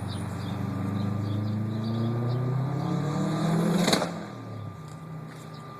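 Subaru WRX STI's turbocharged flat-four accelerating hard, its pitch climbing steadily, on a car that is misfiring on all four cylinders and losing power. About four seconds in there is one sharp bang, the loudest sound, and then the engine drops away quieter and lower.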